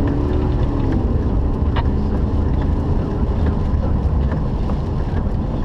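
Wind buffeting the microphone during a tornado-producing storm: a loud, steady low rumble.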